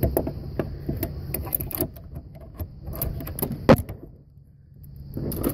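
Irregular metallic clicks and knocks of hands working pliers and a spring hose clamp on a coolant hose, with one sharp knock about three and a half seconds in and a brief quieter spell after it.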